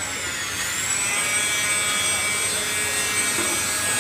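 A high-pitched motor whine with many overtones, steady apart from a brief dip in pitch about half a second in.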